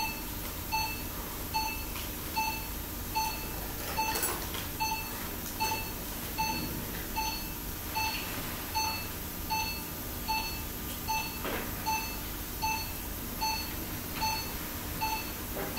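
Patient monitor beeping in an operating theatre: a short electronic tone repeating evenly a little more than once a second, pacing the heartbeat at about 75 a minute.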